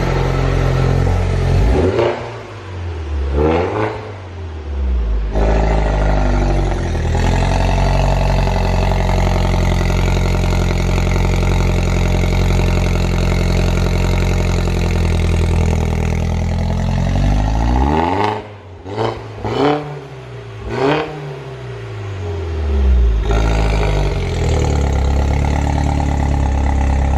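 Mini John Cooper Works GP's turbocharged four-cylinder engine at its first start-up after a high-flow sports catalytic converter was fitted, heard at the twin centre tailpipes. It idles, is blipped a few times, is held at raised revs for about ten seconds, and is blipped several more times before settling back to a steady idle.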